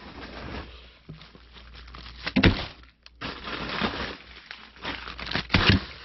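Food packages in plastic bags being loaded into a chest freezer: bags crinkling and rustling, with a sharp knock about two and a half seconds in and a couple more near the end as items are set down.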